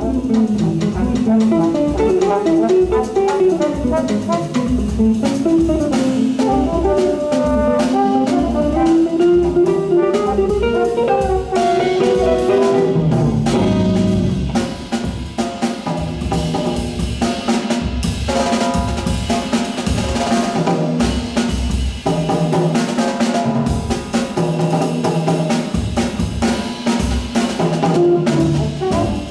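Live instrumental jazz: electric guitar and drum kit playing together, the guitar carrying a winding melodic line over the drums. About twelve seconds in the texture changes and the drums come more to the fore.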